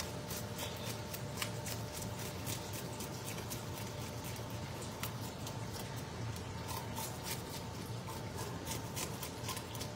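A knife scraping the scales off a fish: a fast, irregular run of short scrapes and clicks over a steady low hum.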